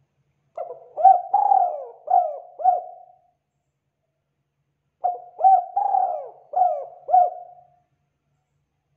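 Spotted dove (tekukur) cooing: two phrases of about five low coos each, the second starting about five seconds in.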